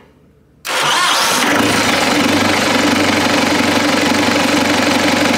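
Tractor engine starting up suddenly under a second in and settling quickly into a steady idle.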